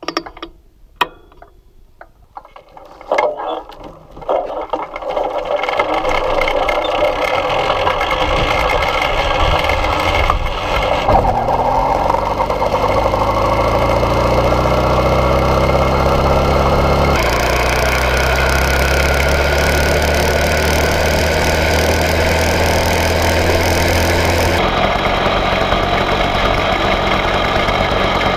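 Small air-cooled single-cylinder engine of a 1901 Indian Camelback replica being started: a few clicks and knocks over the first seconds, then it catches about four seconds in and runs. Its pitch rises steadily through the middle as the bike picks up speed, then holds steady.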